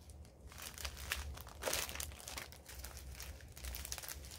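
Small plastic bags of diamond painting drills crinkling and rustling in irregular crackles as they are handled and searched through, with a longer rustle a little under two seconds in.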